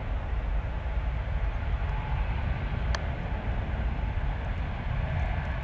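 Jet airliner's engines at takeoff thrust during the takeoff roll, a steady low rumble with a hiss above it.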